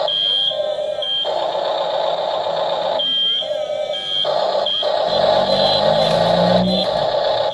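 Electronic beeping: short high beeps, about five in all, over steady synthetic tones that switch on and off, with a lower rumbling pattern about five seconds in.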